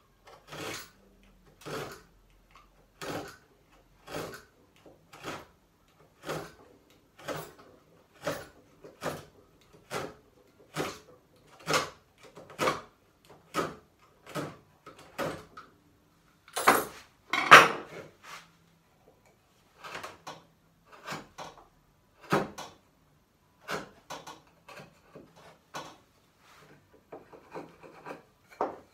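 Hand chisel paring the shoulder and tenon of a corner bridle joint in timber: short slicing cuts, about one a second, with two louder cuts a little past halfway.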